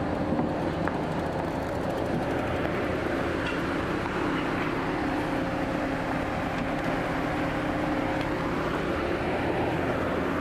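Steady engine drone with a constant hum from a docked ferry and the motorbikes and scooters being taken off its deck.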